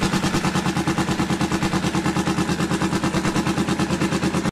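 Motorcycle engine idling with a rapid, even pulsing beat; it cuts off suddenly at the end.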